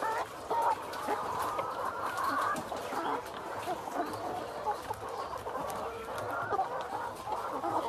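A caged flock of brown layer pullets clucking and calling over one another in a constant chorus, with scattered light clicks.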